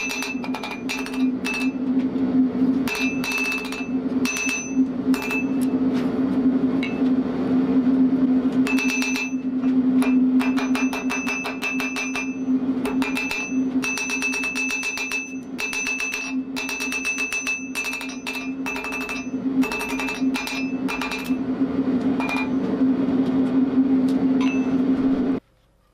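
Ball-peen hammer forging a red-hot steel bar on an anvil: runs of quick blows, each with a bright anvil ring, over a steady low hum. It cuts off suddenly near the end.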